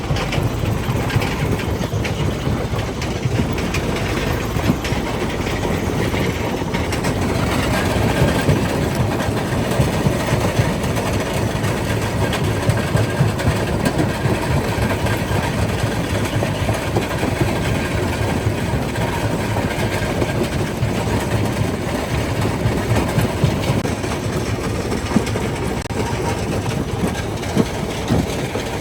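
Primary jaw crusher breaking rock: a steady heavy rumble with frequent irregular knocks and cracks as stone is crushed between the jaws.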